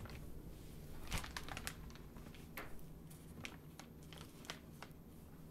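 Plastic anti-static bag crinkling as a motherboard is slid out of it, in scattered soft crackles, the loudest about a second in.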